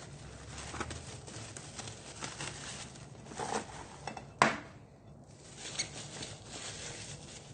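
Faint rustling and handling noises from kitchen preparation, with small clicks and one sharp click or knock about four and a half seconds in.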